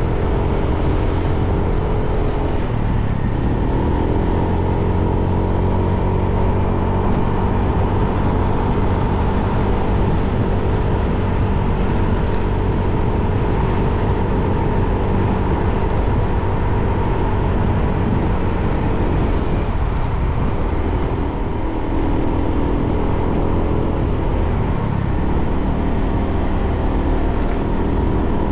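Motorbike engine running on the move, its pitch dipping and picking up again three times as the throttle eases off and opens, over a steady low rumble of wind and road.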